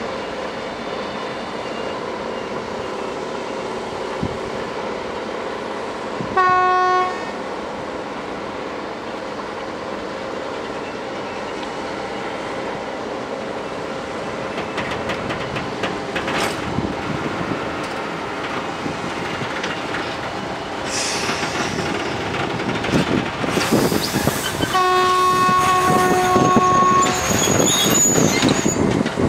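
Steady din of heavy machinery and a slowly rolling freight train as sand is loaded into railway hopper wagons, with wagon clatter. A short horn blast sounds about six seconds in and a longer one of about two and a half seconds near the end, as the clanking and rattling grow louder.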